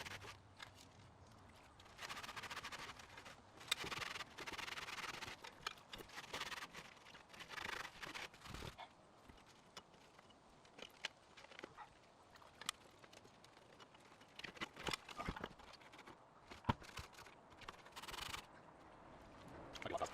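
Intermittent scraping in short bursts of a second or two, mixed with sharp clicks and knocks, from a rusty metal bird feeder being worked on and cleaned.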